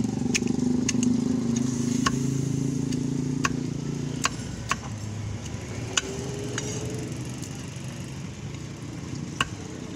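Sharp knocks of a cleaver chopping fish on a wooden chopping block, about eight irregular strikes, over the steady running of a motor vehicle's engine that fades after about four seconds.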